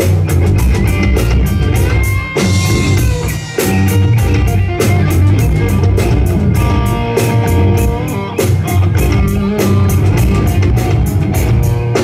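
A live rock band playing: electric guitars through Marshall amplifiers over a drum kit keeping a steady beat, with a lead guitar holding and bending long notes.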